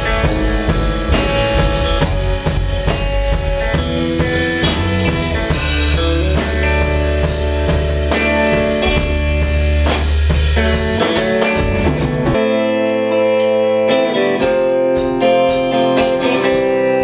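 A band plays an instrumental passage, guitar over a drum kit and low bass notes, with no singing. About twelve seconds in, the drums and bass drop back sharply and the guitar notes carry on more exposed.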